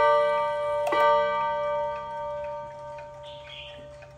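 Seiko 30-day mechanical wall clock striking the hour on its gong rods: one strike right at the start and another about a second in, the last ringing on and slowly fading. The clock's faint ticking runs underneath.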